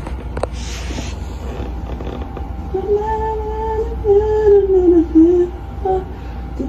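Soft rustling, then from about three seconds in a woman's voice singing a few drawn-out, sliding notes without accompaniment, over a steady low hum.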